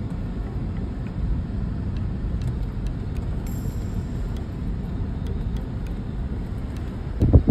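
Car driving: a steady low rumble of engine and road noise, with a loud low bump near the end.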